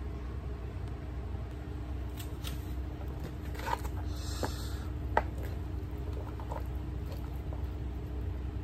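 Steady low room hum with a few small scattered clicks and taps, the sharpest about five seconds in; a faint steady hum tone joins about a second and a half in.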